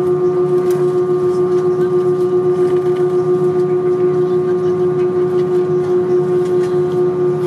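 Airbus A320's jet engines running steadily, heard from inside the cabin: a strong, steady whine with a low hum beneath it and a slight regular throb in loudness.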